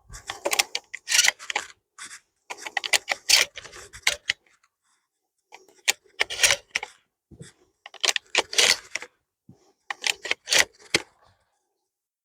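Metallic clicking and rattling of a 12-gauge semi-automatic shotgun being handled and readied to fire, in about five short bursts spread over the stretch.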